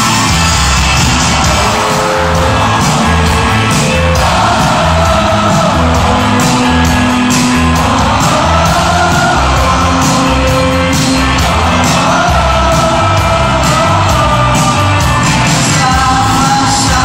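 Live rock band playing loudly in a large hall, with drums keeping a steady beat under electric guitars, with voices singing and shouting over the music.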